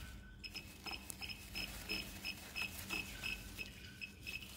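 Labquest HLS200 digital hotplate magnetic stirrer giving short, high electronic beeps, about three a second, as its control knob is turned to set it. A low steady hum runs beneath.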